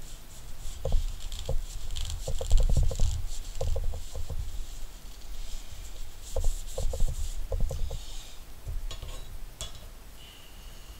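Paper towel rubbing over a wooden knife handle in short bursts of strokes, working lard into the wood, with a few dull bumps from handling the knife.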